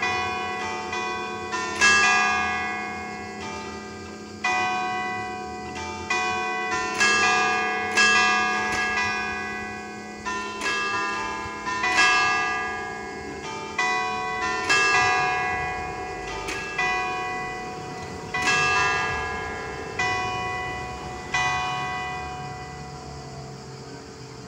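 A set of five church bells tuned in D, cast by Paolo Capanni, played as a carillon: single strokes in an uneven tune, about one a second, each note ringing on and fading. The last stroke comes near the end, and the ringing then dies away.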